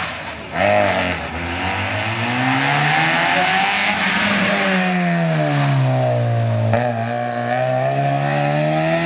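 Racing car engine under load: its pitch climbs, drops smoothly over a few seconds as it comes off the throttle, then climbs again as it accelerates. A single sharp crack comes about two-thirds of the way through.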